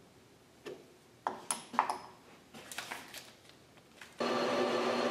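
Light metallic clicks and pings as the copper slug is handled in the lathe's collet chuck. About four seconds in, the lathe starts running with a steady, even hum.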